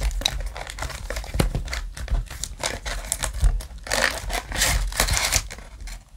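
Foil booster-pack wrappers crinkling as packs are worked loose and pulled from a packed display box, loudest about four to five seconds in.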